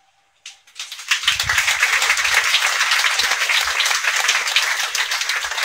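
An audience applauding, starting about a second in and continuing as a dense, steady clatter of many hands.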